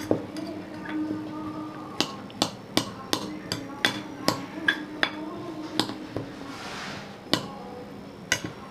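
A utensil pounding boiled jackfruit seeds in a bowl: a string of sharp knocks, about two to three a second, starting about two seconds in.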